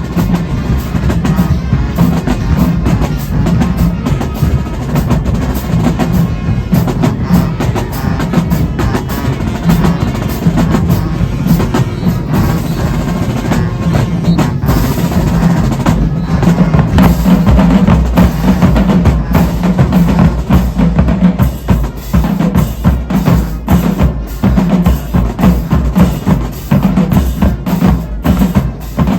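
High school marching band drumline playing, with rapid snare drum strokes over bass drums.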